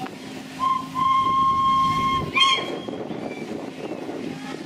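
Miniature railway locomotive's whistle: a short toot, then a steady blast of a little over a second that ends in a brief squeak, over a low steady running hum.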